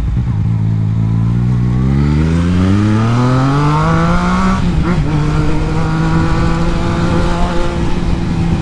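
Yamaha MT-09's three-cylinder engine pulling away under acceleration, its note climbing steadily for about four seconds. Just before halfway the note breaks and drops with an upshift, then holds steady as the bike cruises on in the higher gear.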